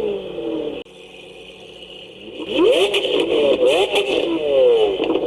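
Vehicle engine sounds with repeated rising and falling pitch sweeps, as in revving or cars passing. The sound drops away about a second in and comes back loud about two and a half seconds in.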